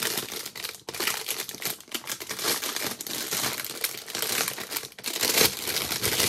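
A bag rustling and crinkling as it is handled and opened, in dense, continuous bursts with brief breaks about a second in and near five seconds.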